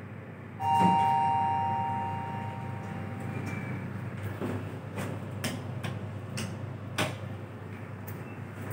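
Xizi Otis traction elevator's arrival chime: a single two-tone ding about half a second in, fading over a couple of seconds, over a steady low hum. The car doors then slide open, and a few sharp clicks follow.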